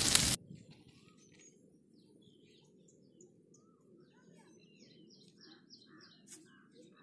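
A seer fish steak sizzling loudly in hot oil in a frying pan, cut off abruptly within the first half-second. Then many faint, short bird chirps from several small birds, growing busier in the second half.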